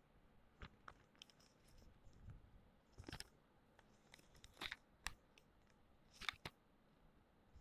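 Faint handling of paper craft pieces: a scattering of short, soft rustles and taps as cut paper strips and paper flowers are picked up and laid down, the clearest about three, four and a half, and six seconds in.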